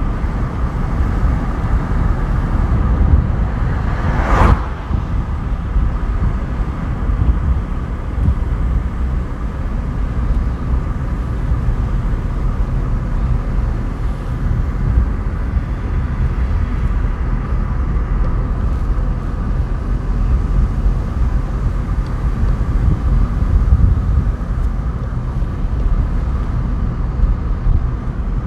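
A car driving along a paved road: a steady rumble of engine and tyre noise, with one short sharp knock about four seconds in.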